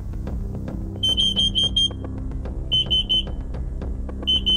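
Carbon monoxide alarms sounding in a test chamber under a dose of 5,000 ppm carbon monoxide: short groups of rapid, high-pitched beeps, repeating every second or two. The detectors are responding to the dangerous gas level and passing the first part of the test.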